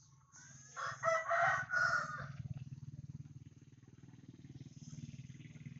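A rooster crowing once, starting about half a second in and lasting nearly two seconds, over a low steady rumble.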